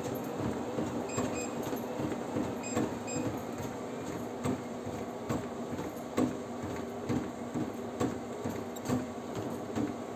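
Xiaomi Mi WalkingPad R1 Pro walking treadmill running under a walker: a steady motor and belt hum with regular knocks about twice a second. This is the unwanted noise the unit makes in use. A few short high beeps sound within the first three seconds.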